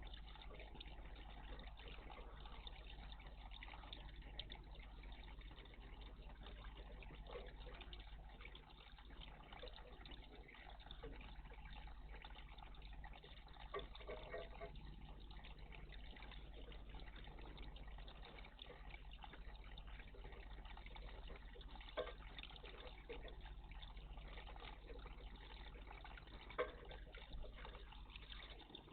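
Faint, steady trickle of water in a garden bird bath, with a few short sharp clicks or splashes scattered through it and a low steady hum underneath.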